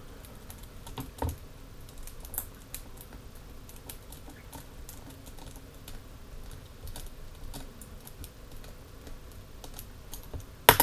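Precision screwdriver turning a small screw into a 3D-printed plastic part, giving a scatter of light clicks and ticks, with one sharper, louder click just before the end.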